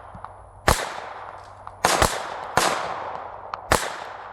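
Five shots from a GSG Firefly .22LR pistol, fired in a fairly quick string with two of them almost back to back about two seconds in. Each crack is followed by a short ringing echo.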